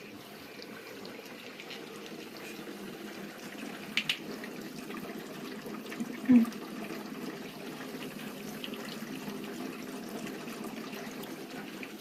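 Chest-tube drainage units' water chambers bubbling steadily under suction. A short click comes about four seconds in, and a louder brief knock about two seconds later.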